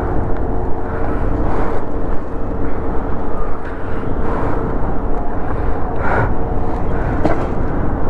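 A vehicle engine running steadily with a low rumble and a constant hum. There are two short knocks or rustles about six and seven seconds in.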